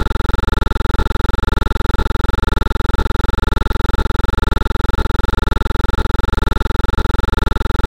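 A loud, steady buzz with a rapid, even pulse and a few fixed tones, unchanging throughout.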